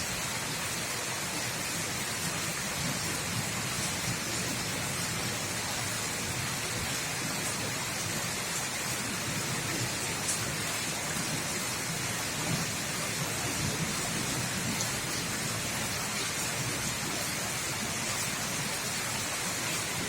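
Steady rain falling, with a few sharper drop ticks now and then.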